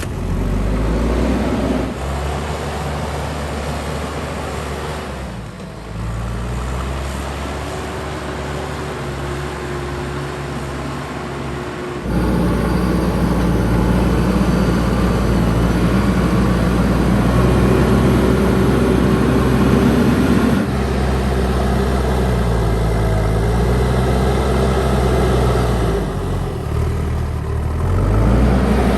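Diesel engine of a JCB 3DX backhoe loader running, its pitch rising and falling several times as the throttle is worked. The sound changes abruptly twice.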